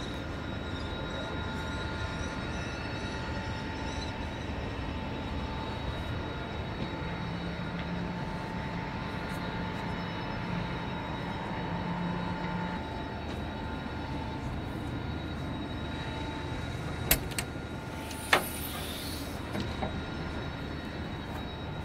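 Steady low rumble with faint high whining tones from a tower crane's machinery, broken near the end by two sharp knocks about a second apart.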